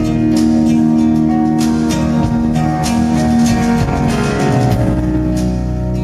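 Live band music led by acoustic guitar, with drums and the rest of the band playing along.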